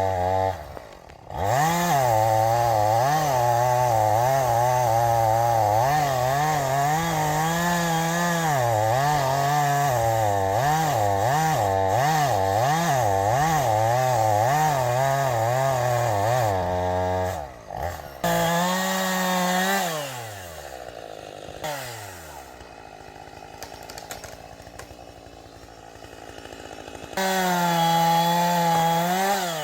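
Gasoline chainsaw running at high revs into an oak, its engine pitch rising and falling over and over as it works. About 18 seconds in it drops back, winds down to a quieter low-speed run, then revs up to full speed again near the end.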